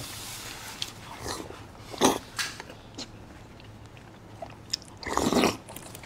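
Close-up eating sounds: slurping and sucking soft, gooey white food off a spoon, with chewing in between. There is a sharp loud slurp about two seconds in and a longer, louder one near the end.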